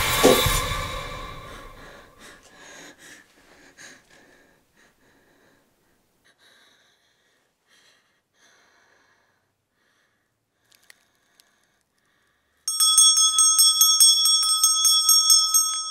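Loud music dies away over the first two seconds into near silence. About thirteen seconds in, a small metal bell starts ringing rapidly, a fast run of strikes with a bright, steady ring, for about three seconds.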